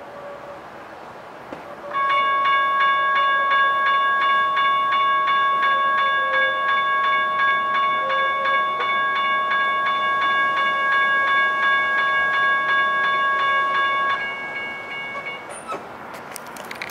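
General Signals Type 1 electronic railroad-crossing bells ringing with a rapid, steady ding that starts about two seconds in. The crossing is warning of an approaching train. The bells stop about fourteen to fifteen seconds in, once the gate arms are down, and a few clicks follow.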